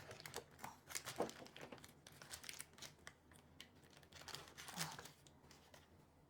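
Faint crinkling and rustling of packaging being handled, with a few light knocks from kitchen things being moved.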